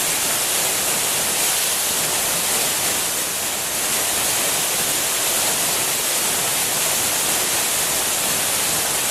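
Waterfall: a steady, hissing rush of falling water.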